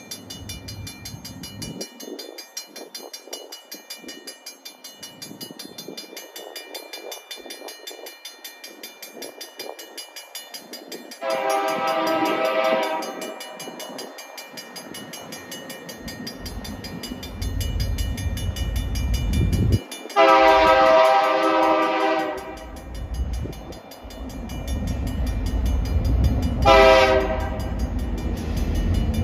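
Railroad crossing bell dinging steadily as a diesel freight locomotive approaches and sounds its multi-note air horn in the grade-crossing pattern: two long blasts, a short one, and a final long one beginning at the very end. The locomotive's low engine rumble grows louder through the second half.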